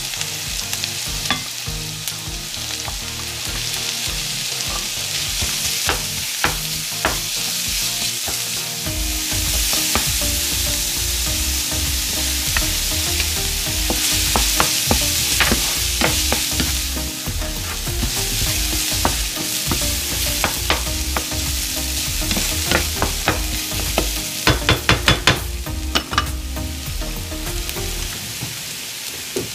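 Minced garlic and onion sizzling in oil and butter in a nonstick frying pan, stirred with a wooden spatula that scrapes and knocks against the pan. A quick run of taps comes near the end.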